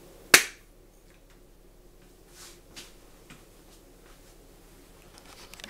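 A single sharp hand clap about a third of a second in, followed by a few faint rustles and soft clicks of a person shifting and getting up.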